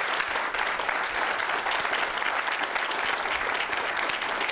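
Audience applause in a meeting hall: many people clapping steadily, with no break.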